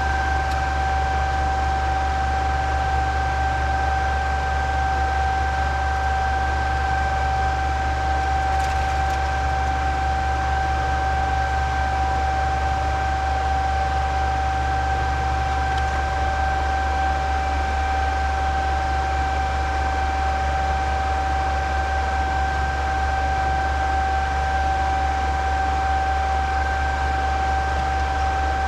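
Computer cooling fans running steadily: a constant whooshing hiss with a steady high-pitched whine and a low hum underneath.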